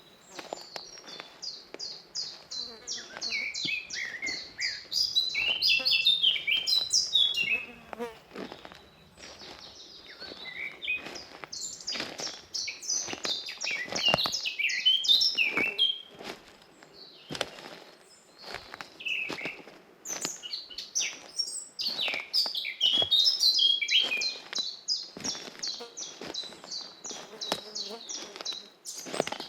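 Forest birds singing: rapid runs of quick, high repeated notes mixed with lower warbling phrases, coming in waves. Soft footsteps sound along a forest path underneath.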